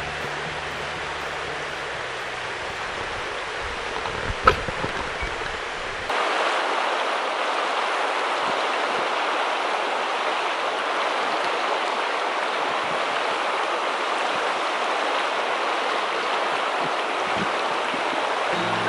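Shallow river flowing steadily over cobbles, with a brief sharp splash about four and a half seconds in. From about six seconds in the rushing water is louder and fuller.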